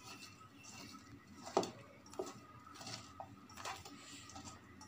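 Hand mixing cauliflower florets with flour and spices in a stainless steel bowl: a few faint, scattered knocks and clinks of the florets and fingers against the bowl.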